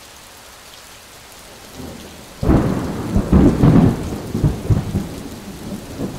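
Thunderstorm sound effect: a steady hiss of rain, then a sudden loud thunderclap about two and a half seconds in that keeps rumbling.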